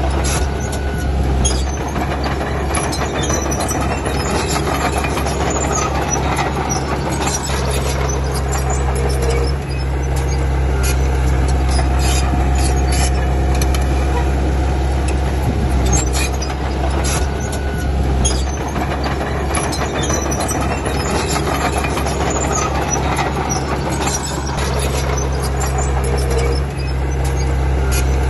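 Komatsu D31P bulldozer's diesel engine running steadily under work, with scattered metallic squeaks and clanks of its steel tracks.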